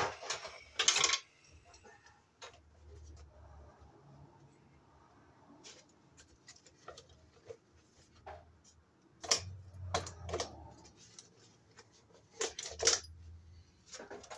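Scattered sharp metallic clicks and clinks of hand tools and wire being handled at a residential breaker panel, a cluster just after the start and a few louder ones in the second half.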